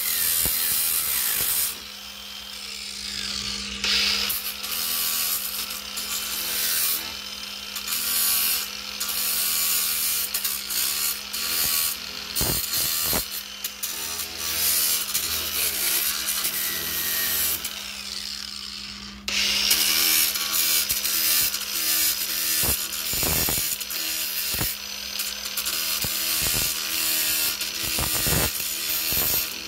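Small electric angle grinder with a sanding disc running with a steady motor hum, its disc scraping and rubbing over a plastic bumper as it grinds down a cracked area held with heat staples. The scraping drops away twice, briefly, around two seconds in and again near the middle, while the motor keeps running.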